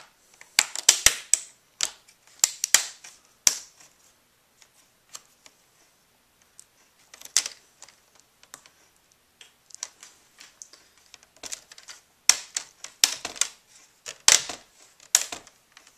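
Plastic snap clips of a Dell Inspiron N4010's screen bezel popping loose as the bezel is pried off by hand. Sharp clicks and cracks come in bunches: a cluster in the first few seconds, a single one about seven seconds in, and a louder run near the end.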